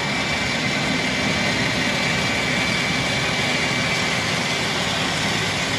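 Work-platform machinery running steadily with a constant high whine.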